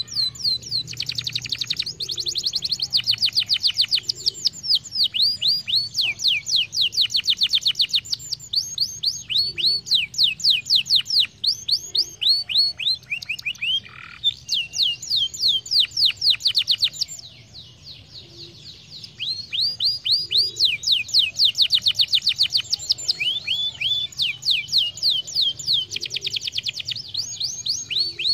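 Domestic canary singing in long, rapid trills of quick falling notes, many per second, with a short pause a little past two-thirds of the way through.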